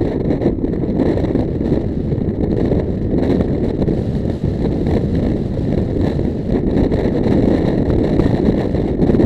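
Steady low rumble of a car driving: road and engine noise heard from inside the cabin.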